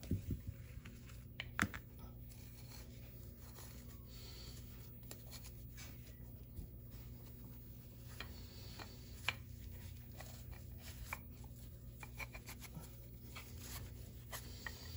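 Faint rustling and scratching of coarse jute twine being handled and pulled through as the sides of a woven pouch are sewn up, with scattered small clicks, over a low steady hum.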